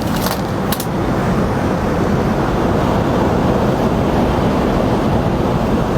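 Steady, loud rushing background noise inside an Airbus A380 cabin, with a faint click about a second in.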